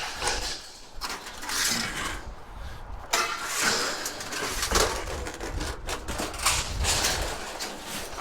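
Rummaging through a dumpster: irregular rustling and scraping of junk being moved, with sharp clattering knocks.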